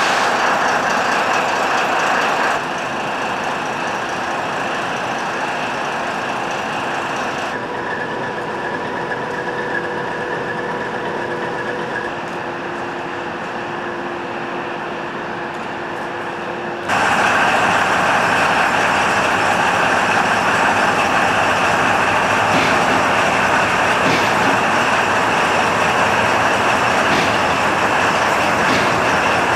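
Diesel locomotive engines running at idle, a steady mechanical hum. It drops to a quieter level with two faint steady tones a few seconds in, then jumps back louder about halfway through.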